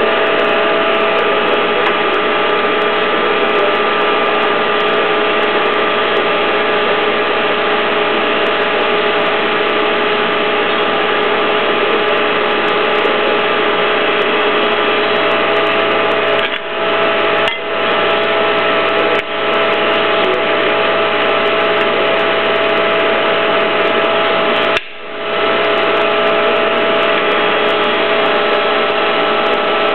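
Hydraulic pipe and tube bender's pump unit running steadily with a constant hum, its level dipping briefly four times in the second half.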